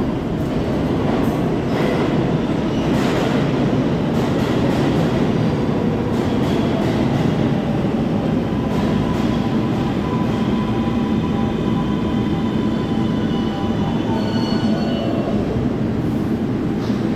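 A 7 line subway train of R188 cars pulls into the station and brakes to a stop. There is a steady rumble throughout, with thin wheel and brake squeals in the middle of the stop.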